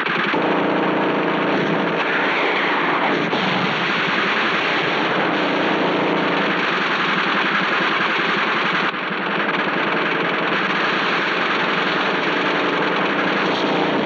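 Film battle sound effects: continuous rapid gunfire over a steady engine drone, changing abruptly about nine seconds in.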